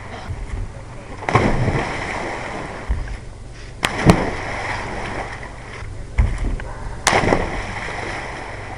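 Water splashing in a swimming pool as people jump in and thrash about, in three surges, the loudest about four seconds in.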